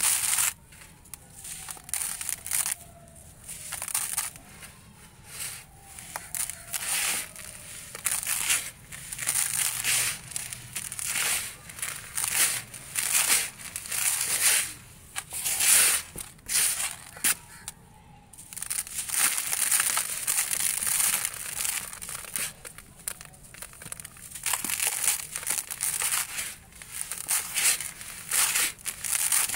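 Dry, gritty sand-cement dust crunching and pouring as hands squeeze and crumble handfuls of it over a heaped pile, in repeated bursts about a second apart, with a few longer pours.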